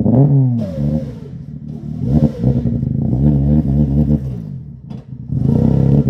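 Volvo 240 rally car's engine revving up and down repeatedly, its pitch falling and rising several times, while a clutch fault keeps it from driving properly.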